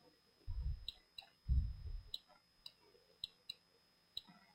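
Computer mouse clicking, about seven short sharp clicks spread out, with two low muffled thuds in the first half that are louder than the clicks.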